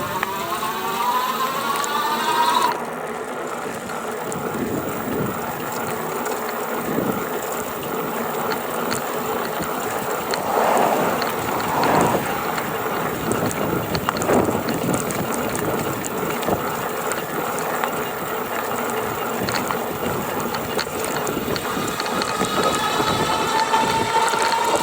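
GoCruiser electric motor speeding up with a rising whine, then, from about three seconds in, running with a steady rattle, the rattling that shows up at 670 to 725 watts of power draw. Near the end a whine rises again.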